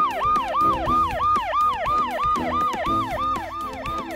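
Police car siren in yelp mode: a fast, repeating up-and-down wail, about three and a half cycles a second, over background music.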